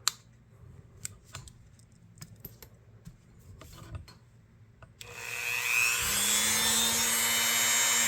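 A few light clicks and taps from handling a pocket knife. About five seconds in, a small handheld electric power tool starts up suddenly and runs steadily at high speed, its hum settling about a second later, as the knife's tang is cleaned.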